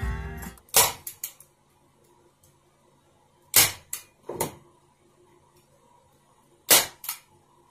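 Hand staple gun firing three times, about three seconds apart, fastening carpet to a wooden cabinet panel; each sharp snap is followed by one or two lighter clicks.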